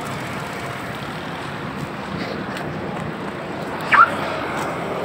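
Steady road traffic noise with wind buffeting the phone's microphone, and one short rising squeak about four seconds in.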